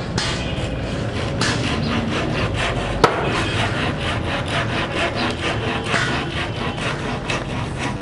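Timber being sawn by hand in steady back-and-forth strokes, about three a second, with a single sharp knock about three seconds in.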